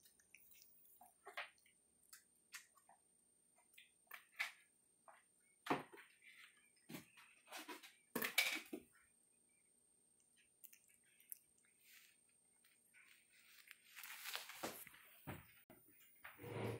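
Java macaques moving over a tabletop and a plastic toy sink of bubbly water: scattered faint taps, knocks and small splashes, with louder scuffling near the end.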